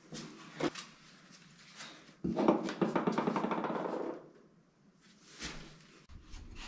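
A rough scraping rasp lasting about two seconds, from a hand tool worked along the surface of a shower tray, with a few light knocks before and after it.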